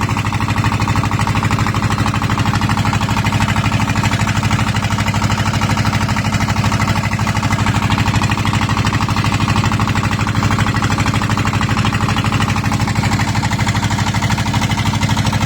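A boat's engine running steadily at a constant speed, with a fast, even knocking beat.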